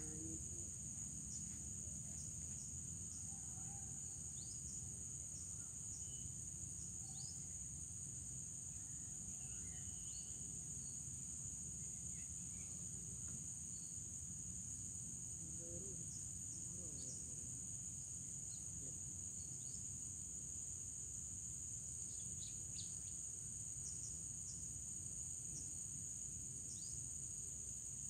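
Steady high-pitched chorus of insects, with a low steady rumble underneath and a few short, scattered high chirps.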